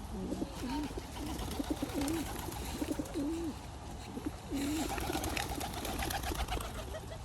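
Pigeons cooing, a string of short, low, wavering coos, with a patch of light clicks and tapping from about four and a half seconds in.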